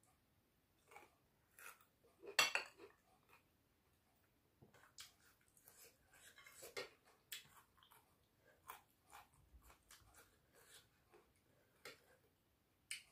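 Faint eating sounds: a person chewing pork and rice and mixing rice by hand on a plate, with scattered small clicks and smacks and one louder crackle about two and a half seconds in.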